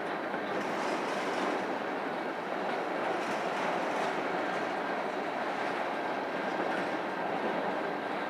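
Railroad cars of a passing train rolling by: a steady, even noise of wheels on rail.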